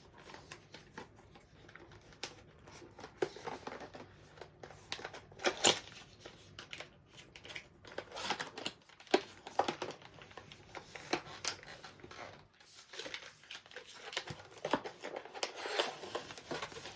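Packaging being handled and unpacked: intermittent rustling and crinkling with scattered light clicks and taps.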